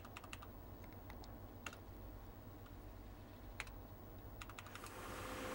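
Quiet low hum with a few faint, irregular clicks. About five seconds in, a hiss and a steady hum swell slightly.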